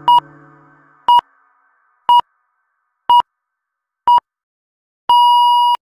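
Workout countdown timer beeping: five short electronic beeps a second apart, then one longer beep about five seconds in marking the end of the rest period. Background music fades out over the first second.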